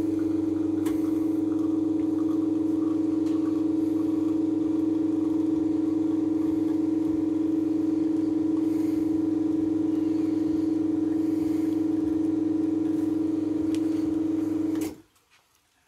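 Commercial two-group espresso machine's pump running with a steady, even hum while a double shot extracts, cutting off abruptly near the end when the shot is stopped.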